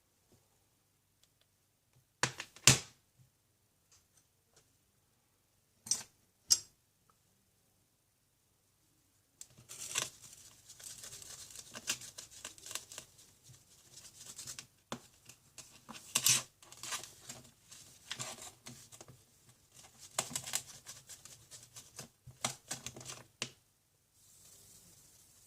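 A few sharp clacks of a smartphone being handled on a hard surface, then a long run of rapid scratchy rubbing and small clicks as the phone is scrubbed clean.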